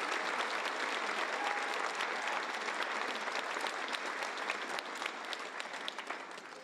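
Theatre audience applauding, the clapping tapering off near the end.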